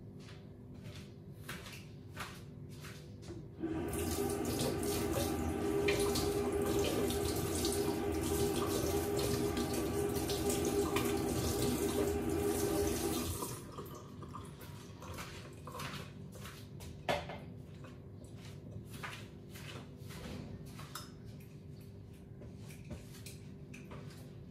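Kitchen tap turned on, with water running steadily into a sink for about ten seconds before it is shut off abruptly. Light clicks and clinks come before and after.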